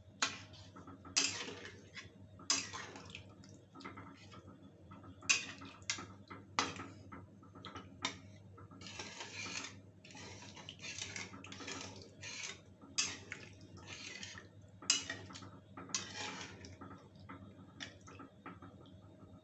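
Metal spatula scraping and knocking against a metal kadhai in irregular strokes, stirring a thin, watery curry of soya chunks and potatoes.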